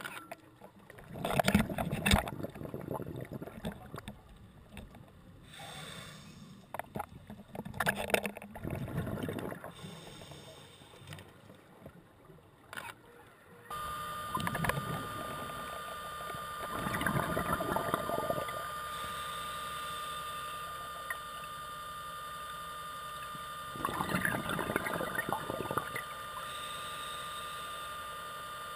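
Underwater sound of scuba divers: loud bubbling bursts every few seconds as regulator exhaust bubbles escape. From about halfway a steady high whine and hum from a diver propulsion vehicle's motor runs underneath.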